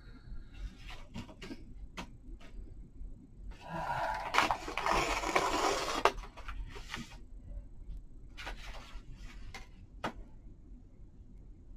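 Coffee-stained lined paper being torn along a wavy-edged tear ruler: a papery ripping noise lasting about two and a half seconds near the middle. Small clicks and taps of the ruler and paper being handled come before and after it.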